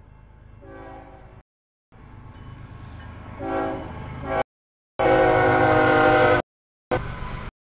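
A CSX freight locomotive horn blows for the grade crossing, several blasts getting louder as the train comes in, the loudest about five seconds in, over a low rumble. The sound cuts out completely for short moments between the blasts.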